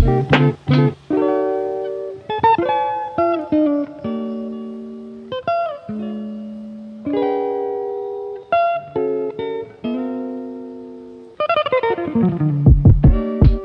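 Instrumental background music: plucked guitar notes and chords that ring and fade, with a few low drum hits near the start and near the end.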